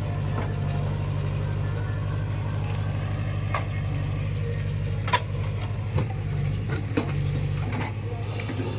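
Heavy diesel engine running steadily at a low idle, with a few sharp knocks scattered through it.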